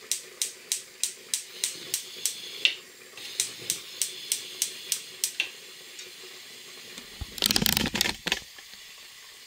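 Meat and onions frying in a steel pot, sizzling over a faint hiss with a quick run of sharp pops about three a second that die away after about five seconds. About three-quarters of the way through comes a loud rustling burst lasting about a second.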